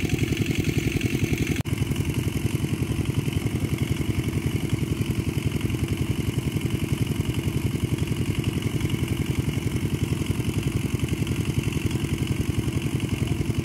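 Small engine running steadily at an even, fast chug.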